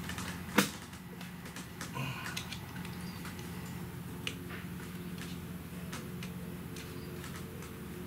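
A sharp metallic click about half a second in, then scattered light clicks and taps of hand tools working among engine-bay parts, over a steady low hum.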